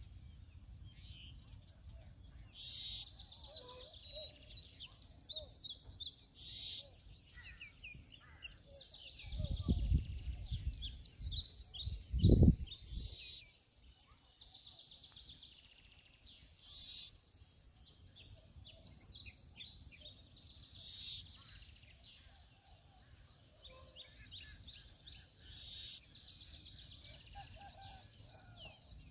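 Small birds chirping and singing all through, with short repeated high calls and a few brief rasping bursts. Two low rumbles break in, a longer one around ten seconds in and a shorter, louder one just after twelve seconds.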